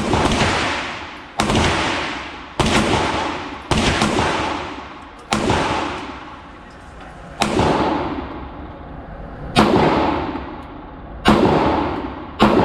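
Nine shots from a ported Glock 43X 9mm pistol, fired at an uneven pace one to two seconds apart. Each shot is followed by a long echo off the walls of an indoor range.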